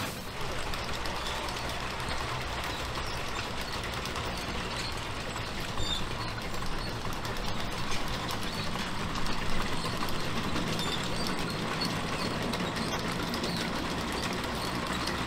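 Lombard steam log hauler running on its tracks: a steady hiss of venting steam mixed with rapid mechanical clatter from the engine and drive.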